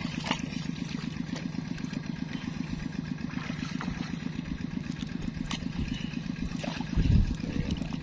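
A stick slapping into shallow river water, splashing several times at irregular intervals, over the steady putter of a small engine. A louder low thump comes about seven seconds in.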